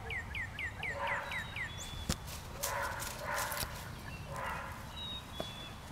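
A dog barking a few times at a distance. In the first couple of seconds a songbird sings a quick run of repeated down-slurred whistles.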